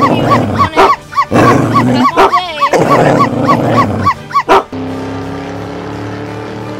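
Dog barking in a rapid series, a dubbed sound effect over background music. The barking stops about four and a half seconds in, leaving only the music.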